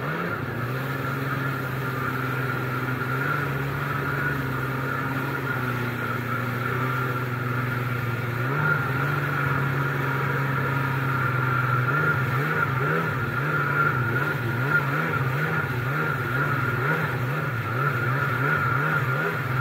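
1998 Kawasaki SXi Pro stand-up jet ski's two-stroke engine running under way, with water rushing past the hull. The engine note holds steady at first, then from about halfway through wavers quickly up and down.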